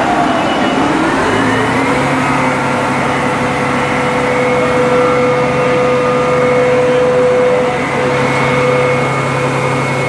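Fire truck engine speeding up over the first couple of seconds, then running steadily at the higher speed with a constant whining tone over a low hum.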